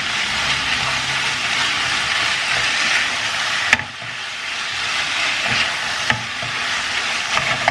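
Tuna masala sizzling in a hot pan while being stirred, with a few sharp knocks of the stirring utensil against the pan.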